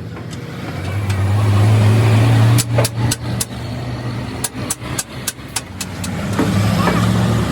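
A steady machine hum that builds up over the first couple of seconds, with a run of about a dozen sharp knocks in the middle.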